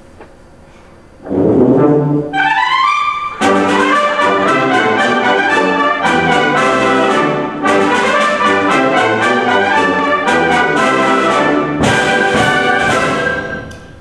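Concert wind band of brass and woodwinds playing loudly: a rising run, then the full band in quick repeated chords. The music breaks off suddenly about twelve seconds in, picks up briefly and trails away near the end.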